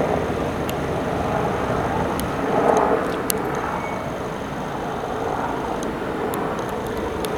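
Houseboat's motor running steadily under way, a continuous engine drone with a few faint high clicks over it.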